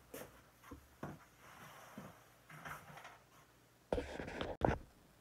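Handling noise from a phone being moved about: a few soft knocks and rustles, then a louder burst of rustling and knocking about four seconds in.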